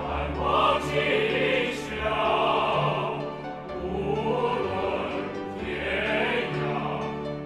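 Choir singing with orchestral accompaniment, in long, held phrases.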